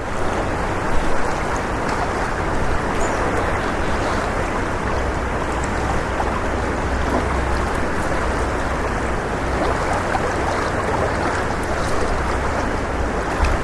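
River water rushing steadily past rocks, with a low wind rumble on the microphone underneath.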